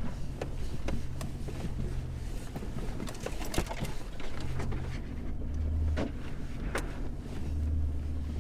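Toyota LandCruiser 200 series creeping along a rough bush track with its engine running steadily, while branches scrape and knock along the body in short, repeated strokes.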